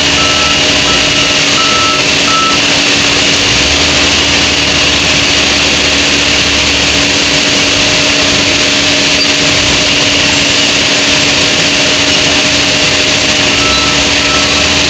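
Lovol wheel loader's diesel engine running steadily as it works. Its reversing alarm beeps about twice a second for the first couple of seconds and starts again near the end.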